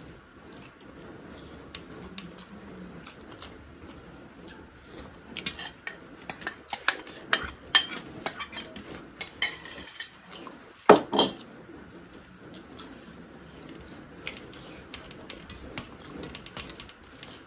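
Hands working rice on stainless steel plates, with a run of sharp clinks and knocks in the middle as a glass bowl of curry is tipped out over a steel plate; the loudest knock comes about eleven seconds in.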